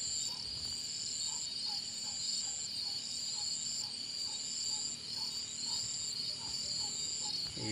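Night chorus of crickets: a steady high trill in runs of about a second with short breaks, over a continuous insect buzz, with faint soft pips underneath.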